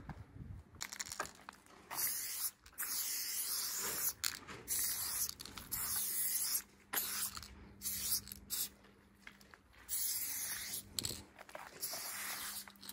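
Aerosol spray paint can hissing in a run of bursts, each a second or two long with short breaks between, as a tag is sprayed on a wall.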